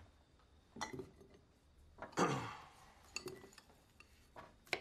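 Glass mason jars and kitchen utensils clinking and knocking quietly as they are handled on a table, a few separate times.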